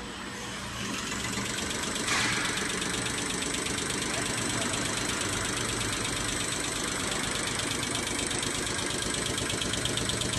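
CR708 common rail diesel injector test bench running, its drive motor turning the high-pressure pump steadily. A hiss sets in suddenly about two seconds in, then a fast, even ticking of the injector firing carries on over the machine's running.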